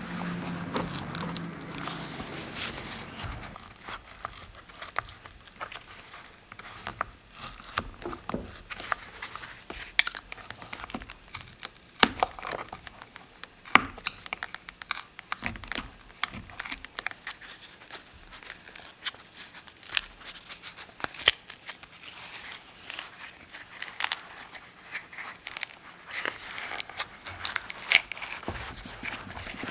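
Crinkling and tearing handling noises with many scattered sharp clicks and crackles, from hand work on a Selle Italia Flite bicycle saddle during its restoration. A low hum sits under the first three seconds.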